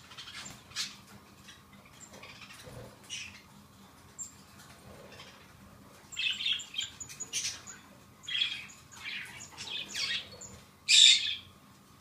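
Baby budgerigar chick making short, raspy food-begging calls while being hand-fed from a syringe: a few calls at first, then a quick run of them from about halfway, the loudest near the end.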